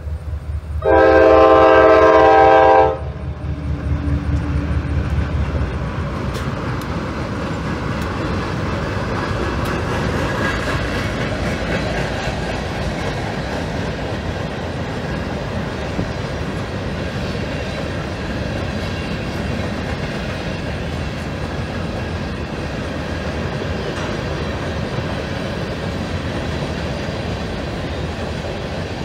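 GE B36-7 diesel locomotive blowing one horn blast of about two seconds, a second in, the loudest sound, with its engine running as it passes. Then a string of empty covered hopper cars rolls by with steady wheel-on-rail noise and clatter.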